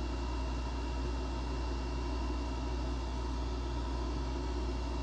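Electric bench chain grinder's motor running steadily with its CBN wheel spinning, a constant low hum with no grinding contact.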